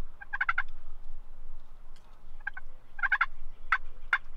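Wild turkey gobbler gobbling: a few quick rattling gobbles, followed near the end by two short, sharp single notes.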